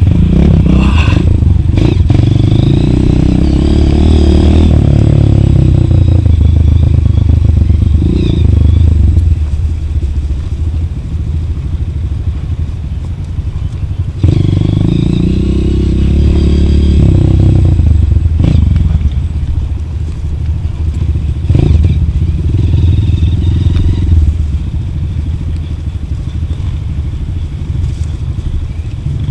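Off-road motorcycle engine running and revving in surges, its pitch rising and falling as the throttle is opened and closed on the trail.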